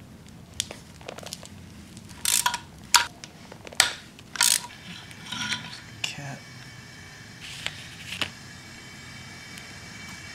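A ratchet and socket undoing the two 12 mm nuts on a Subaru EJ25 connecting-rod cap, and the steel cap being worked off. There is a handful of sharp metal clicks and clinks, several ringing briefly, thinning out after about six seconds.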